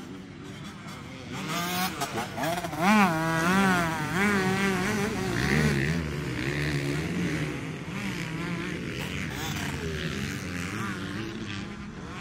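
Motocross bikes revving hard as they pass. Engine pitch rises and falls rapidly as the throttle is worked on and off, loudest a few seconds in, then a steadier engine sound runs on.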